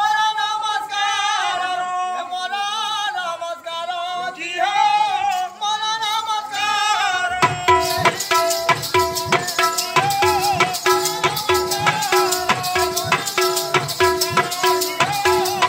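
A man sings a wavering folk melody alone, then about seven seconds in a Sambalpuri dhol, a two-headed barrel drum played by hand, comes in with a fast, even beat and a rattle keeping time over it.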